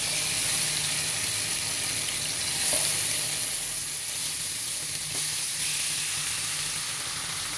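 Marinated chicken drumsticks sizzling in hot oil in a nonstick frying pan as more pieces are laid in, a steady frying hiss with a few faint ticks.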